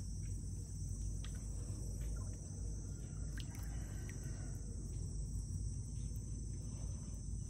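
Steady high-pitched insect chorus, with a low rumble underneath and a few faint clicks.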